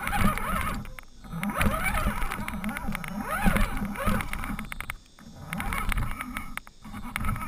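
Radio-controlled crawler truck's motor and gears whining, rising and falling in pitch with the throttle and dropping away briefly three times, with the tyres and chassis knocking over logs and stones. It is heard close up from a camera mounted on the truck.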